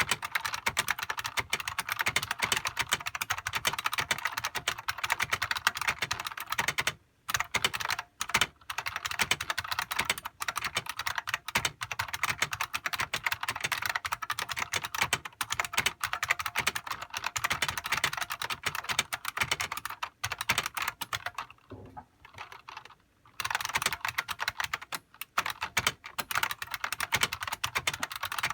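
Fast continuous typing on a Unicomp Classic buckling-spring keyboard: a rapid stream of loud, sharp key clicks, with a few brief pauses about seven seconds in and again past the twenty-second mark.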